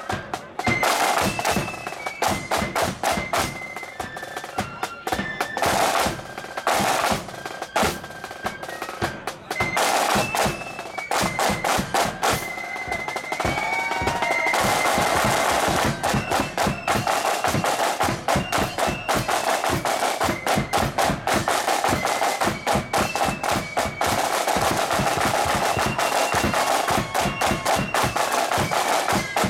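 Marching flute band playing: flutes carry a melody over snare-drum rolls and bass-drum beats. About halfway through, the band grows louder and fuller.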